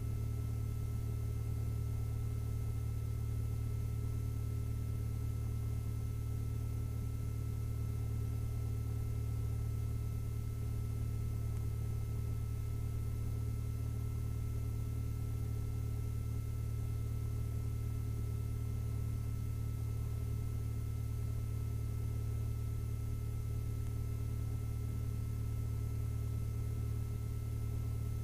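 Lycoming IO-360 four-cylinder engine of a 1967 Mooney M-20F idling steadily while it warms up, heard inside the cockpit as a constant low drone.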